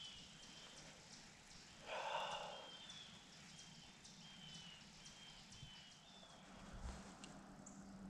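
Faint woodland ambience at dusk: a small high chirp repeats evenly about twice a second. A short noisy burst about two seconds in is the loudest sound, and a dull thump comes near the end.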